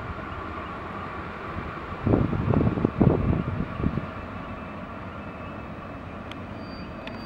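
EU07 electric locomotive pulling a passenger train away slowly, its machinery giving a steady hum with a held tone. Low rumbling buffets of wind on the microphone come and go about two to four seconds in, the loudest part.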